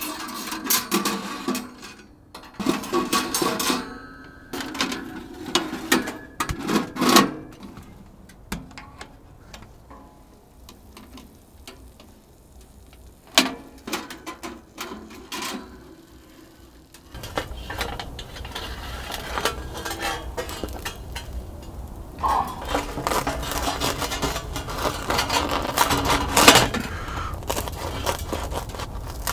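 Irregular metal clinks and clatter of small metal items being handled, quieter through the middle; a little past halfway a steady low rumble comes in under further clattering.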